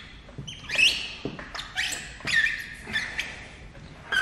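Film squeegee dragged in short strokes over wet paint protection film, giving a series of high squeaks about two a second as it pushes the remaining slip solution out from under the film.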